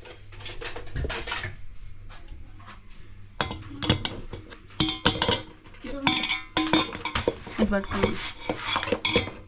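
Metal clatter of an aluminium cake tin knocking and clinking against the large aluminium pot it sits in as it is handled with a metal pan gripper: a run of irregular taps and clanks.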